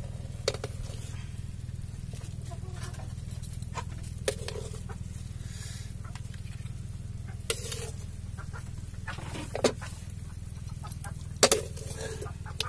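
Metal ladle clinking against a metal wok and a plate while scooping coconut-milk stew: about five sharp clinks spread apart, the loudest a double clink near the end, over a steady low hum.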